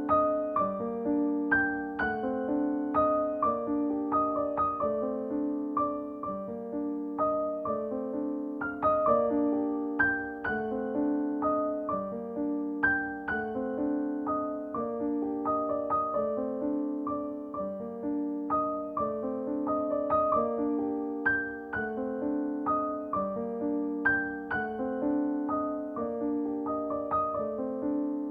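Background music: a simple, gently repeating piano or electric-piano melody.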